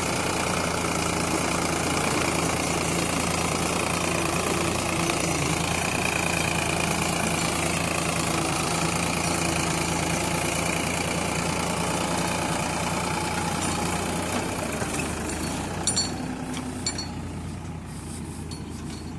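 Diesel engine of heavy equipment (the backhoe loader or the tractor) running steadily. It eases off about three-quarters of the way through, with a few sharp clicks around then.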